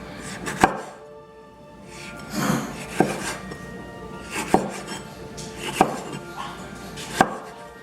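Kitchen knife chopping a yellow bell pepper on a cutting board: five sharp chops about a second and a half apart, with softer scraping between them, over background music.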